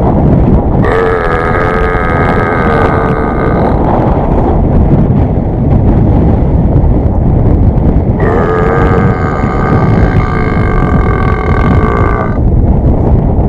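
Two long, drawn-out burps used as a call to get cattle's attention. The first comes about a second in and the second a little past the middle, each lasting about four seconds and steadying after a wobbly start. Constant wind noise on the microphone runs underneath.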